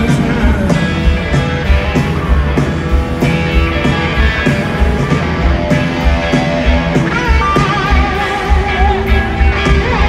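Live rock band playing loud: drums, bass and electric guitars. About seven seconds in a high melody line with bending, wavering notes comes in over the band.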